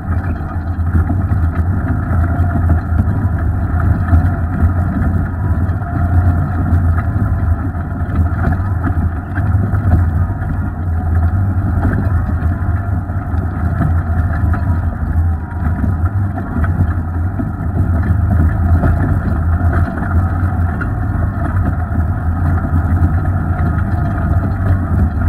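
Off-road vehicle's engine running steadily with a low drone as it crawls along a rocky dirt trail.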